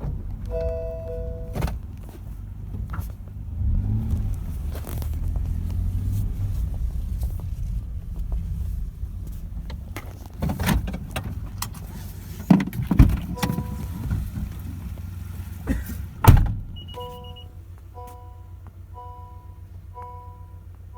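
Car engine running with a low rumble, heard from inside the car, with several sharp thuds like a car door being shut. Near the end the rumble eases and a chime starts repeating about once a second.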